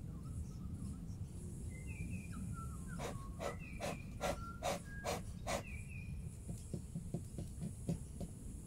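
Morning bush ambience: a steady high insect hum and short chirping calls, with a quick run of about seven sharp knocks or taps in the middle, followed by softer clicks.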